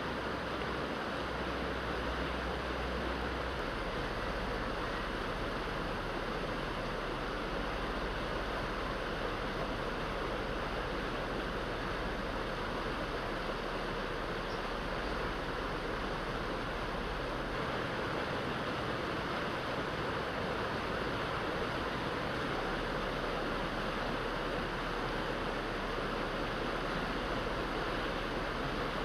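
Steady rushing of fast-flowing floodwater, an even noise that holds without a break.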